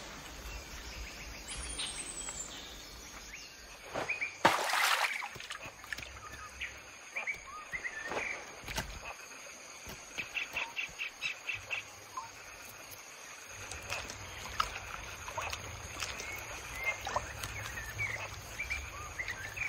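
Tropical forest ambience: scattered bird chirps and calls over a steady high tone, with a rapid run of quick notes about ten seconds in. A short, loud burst of noise comes about four and a half seconds in.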